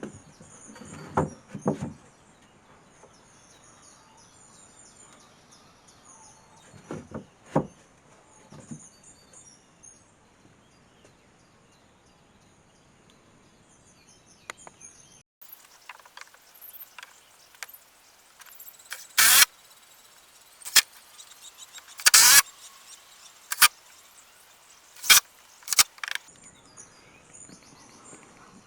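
Birds chirping in the background with a few soft knocks. After an abrupt change, a run of about six loud, sharp knocks in the second half, from work on the wooden pallet coop.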